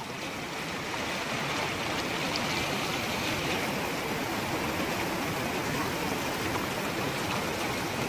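Firework rocket hissing steadily after lighting, its charge burning without the rocket flying off; the hiss swells over the first second or two and then holds.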